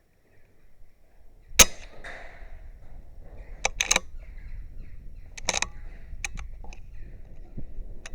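A .22 BSA Superten pre-charged air rifle fires once with a sharp crack about a second and a half in, the loudest sound. Several shorter, quieter clicks and knocks follow over the next few seconds.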